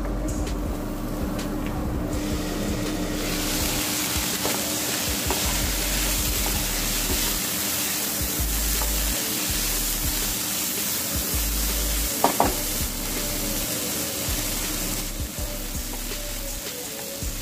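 Green beans with onion and dried red chillies sizzling as they are stir-fried in a pan and turned with a wooden spatula. The sizzling is loudest through the middle and dies down near the end, with a knock of the spatula against the pan about twelve seconds in.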